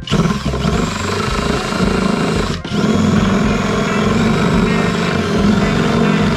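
WORX cordless drill driving a reciprocating-saw adapter, its blade sawing through a ceiling panel. It runs, stops for a moment about two and a half seconds in, then runs on and cuts off near the end.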